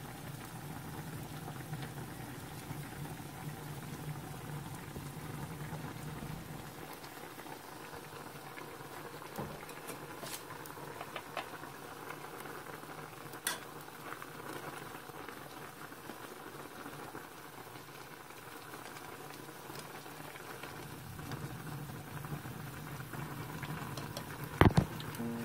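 A pot of ramen with chicken breast pieces boiling steadily, bubbling, while it is stirred with wooden chopsticks; a few light clicks and one sharp knock near the end.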